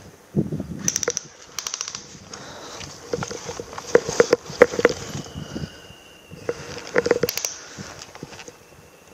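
Footsteps and body movement crunching through dry twigs, pine needles and leaf litter on a forest floor, in irregular clusters of crackling snaps that are loudest around the middle.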